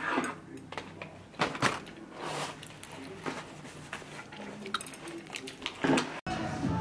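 Chopsticks and a metal utensil clicking and scraping against a plastic takeout tray while rice cakes are picked out of it, with a few sharp clicks.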